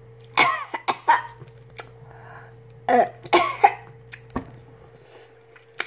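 Mouth sounds of someone eating a king crab leg: two short slurping bursts, about half a second in and again around three seconds in, with lip smacks and small clicks between.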